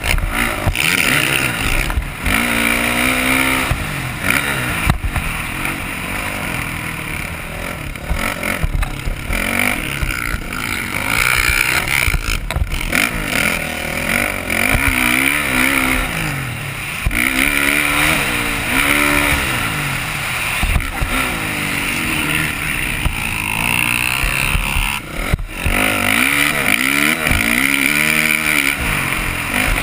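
Dirt bike engine revving hard and dropping back over and over as the rider works through the gears on a motocross track, heard from a helmet-mounted camera over a steady rushing noise, with a few sharp knocks.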